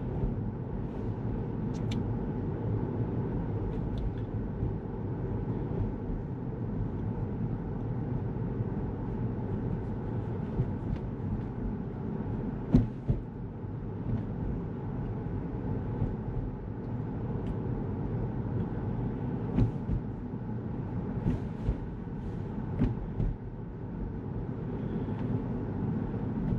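Inside a Tesla electric car driving slowly: a steady low tyre and road rumble with no engine note. A few short sharp knocks stand out, the loudest just before halfway and several more in the second half.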